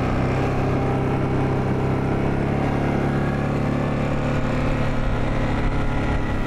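ATV engine running at a steady speed while the four-wheeler is ridden over snow.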